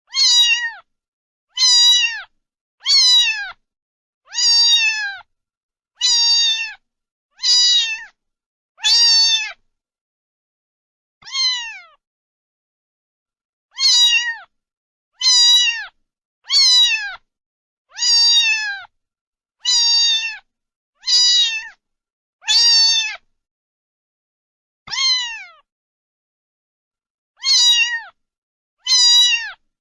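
A cat meowing over and over, about eighteen short meows, each falling in pitch at the end, coming roughly every second and a half with a few longer pauses.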